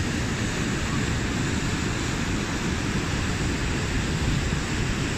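Steady rush of whitewater from the Merced River pouring over a waterfall, an even hiss with a heavy low rumble.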